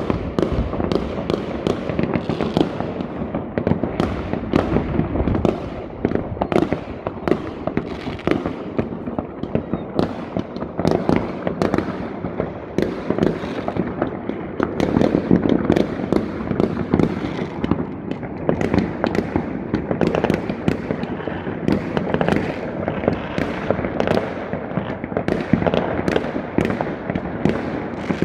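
Many fireworks going off at once across the area: a dense, continuous run of overlapping bangs and crackles with no pause.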